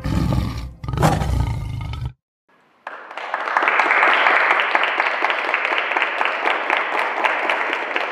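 A big-cat roar sound effect lasting about two seconds, cutting off abruptly. After a short silence, an audience applauds steadily.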